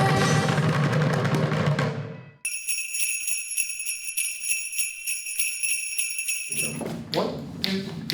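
Ensemble music stops about two seconds in. Sleigh bells then shake on their own for about four seconds, a high shimmering jingle. A brass band starts playing near the end.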